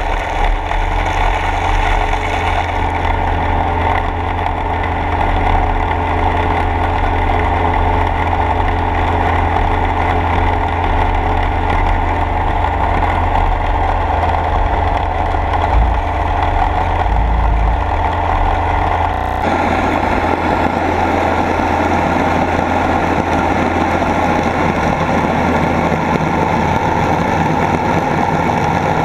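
Submersible suction dredge running underwater: a steady mechanical hum over a deep drone, with the rush of water and sediment through the suction head. The tone changes abruptly about two-thirds of the way through.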